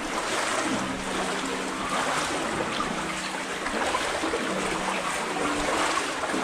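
Knee-deep water sloshing and trickling around the legs of someone wading through a flooded tunnel: a steady rushing of water with a faint low hum beneath it.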